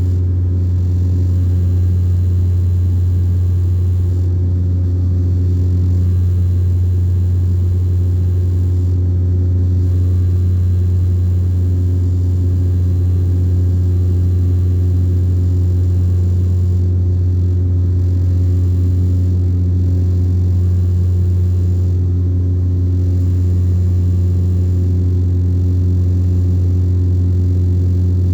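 Airplane engine running steadily in flight: a loud, even, low hum whose upper overtones waver in and out every few seconds.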